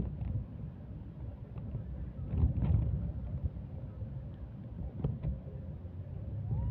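Wind buffeting the microphone: an uneven low rumble that gusts louder about two and a half seconds in, with a few faint clicks.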